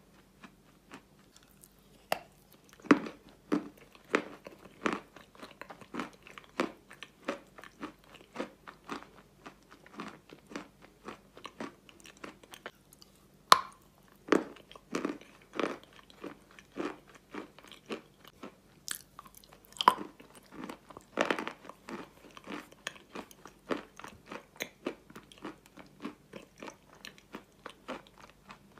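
Close-miked chewing and crunching of Ural clay paste: a string of sharp, irregular crunches and mouth smacks, about one or two a second, with a few louder bites along the way.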